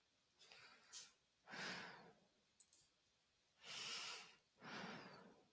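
A person's faint breathing into a close microphone, four soft breaths, with a couple of brief faint clicks in between.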